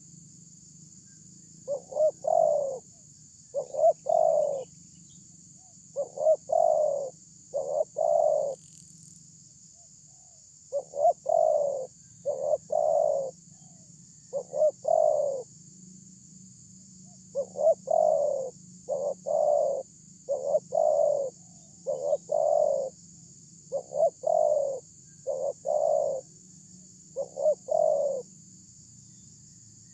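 Spotted dove cooing: short, deep coos repeated every one to two seconds, with a couple of brief pauses. A steady high hiss runs underneath.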